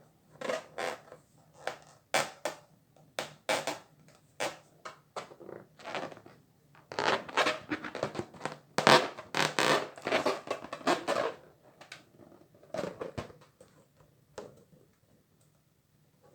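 Water-filled balloons being popped, one after another: short sharp pops and crackles in irregular clusters, thickest around the middle and thinning out near the end.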